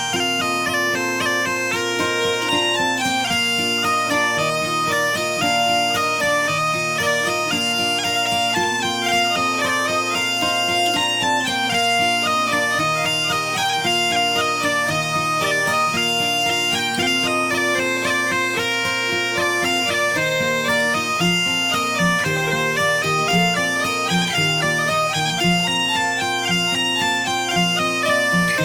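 Background music: a bagpipe playing a lively melody over a steady drone.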